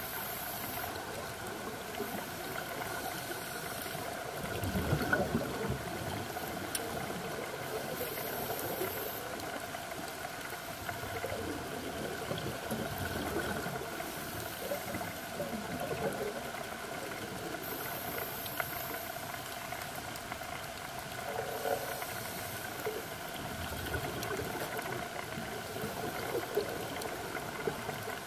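Underwater ambience recorded on a scuba dive: a steady hiss and hum, with a diver's exhaled regulator bubbles gurgling past in louder surges about five seconds in and again a little past twenty seconds.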